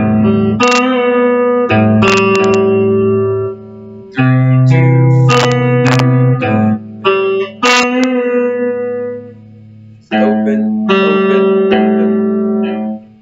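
Guitar playing a picked single-note riff with fretted and open-string notes ringing on, in three phrases with short breaks about a third of the way in and near two-thirds.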